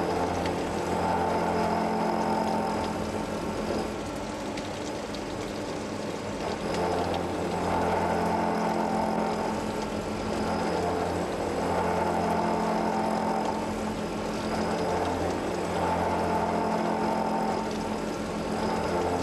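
Weingaertner lathe machining the steel helical rotor of a progressive cavity pump: a steady machine hum with a metal-cutting sound that swells and eases every few seconds.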